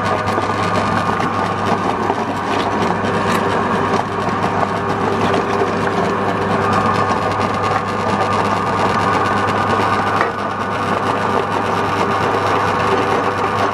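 Motorised meat grinder running steadily with an even hum as it grinds calabash, the auger pushing the gourd flesh out through the cutting plate.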